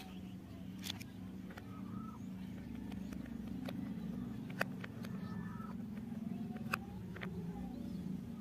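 Hard plastic toy parts clicking and tapping as they are handled and a plastic screw is worked with a plastic toy screwdriver, a few sharp clicks scattered through. Underneath, a low steady rumble that swells a little in the middle.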